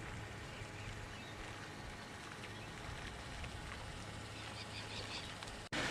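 Quiet outdoor ambience by the water: a steady hiss with a low rumble, and a few faint bird chirps about four to five seconds in. The sound drops out briefly just before the end.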